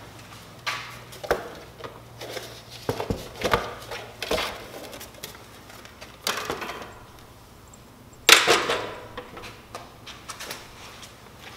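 Tools and parts being handled: a string of light knocks, clicks and clatters, the loudest about eight seconds in.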